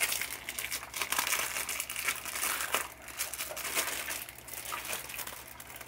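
Packaging of a heat shrink tubing assortment crinkling and rustling as it is handled, a continuous run of small crackles.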